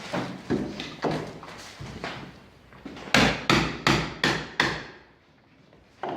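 Hammer striking wooden parquet: a few lighter blows, then about three seconds in a quick run of five loud blows, roughly two and a half a second.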